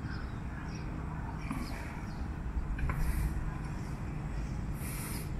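Outdoor background noise with a steady low rumble of wind on the microphone, a few short hissy swishes and faint ticks.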